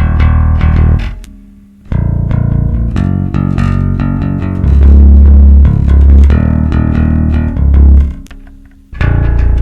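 Electric bass guitar playing a line of low notes in a piece of music. The sound dies away twice, about a second in and again near the end, before the playing resumes.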